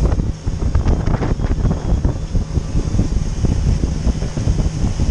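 Wind buffeting the microphone on a pontoon boat running at speed, over the steady drone of the boat's motor and the rush of water past the hull.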